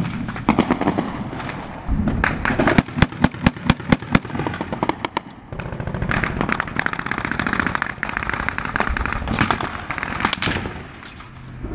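Small-arms gunfire in rapid shots, the loudest a dense string of sharp cracks from about two to five seconds in, with more crackling gunfire carrying on through the rest.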